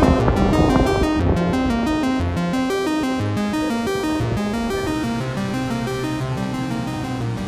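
Background music of quick, stepping notes, with a low note held from about five seconds in.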